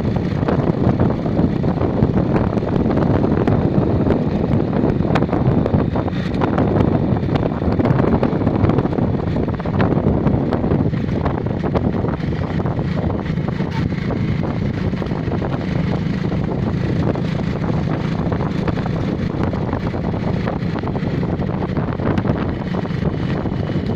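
Wind buffeting the microphone over the steady low running of a moving vehicle, its hum becoming steadier in the second half.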